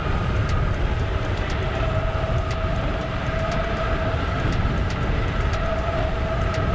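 Wind rushing over a handlebar-mounted action camera's microphone as a bicycle on thick knobby tyres rolls fast down asphalt, with a steady hum from the rolling tyres and a light regular tick.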